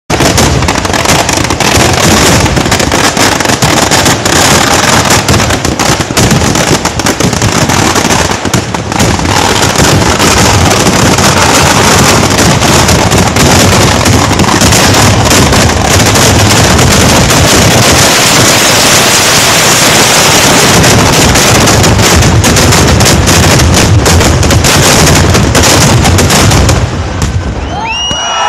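Dense fireworks barrage: a continuous, very loud stream of rapid bangs and crackling that dies away about a second and a half before the end.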